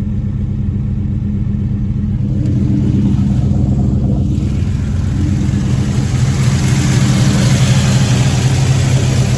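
LS V8 engine in a Chevy S-10 running, a little louder and rougher from about halfway in. It is running badly: the owner suspects it isn't firing on all eight cylinders.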